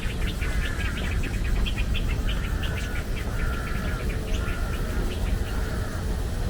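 Songbirds chirping: a busy run of short, quick chirps with longer drawn-out calls between them, over a steady low rumble.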